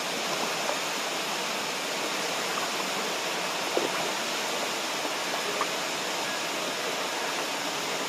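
Steady rush of a mountain stream pouring over a shallow rock ledge of rapids into the lake.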